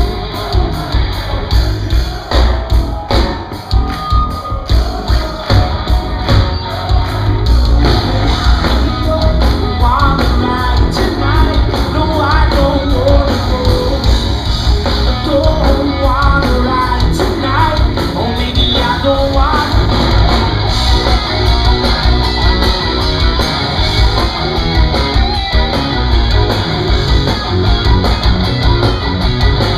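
Live rock band playing loud, with electric guitars, bass and drums and a sung vocal line. Sharp drum hits mark the opening seconds, then the band settles into a dense, steady wall of sound with the vocal melody riding over it.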